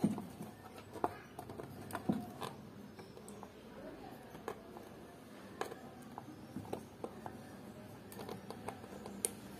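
Faint, scattered sharp clicks and light taps of a soldering iron being worked over the solder joints of a CRT TV main board, desoldering the pins of the picture-tube base socket.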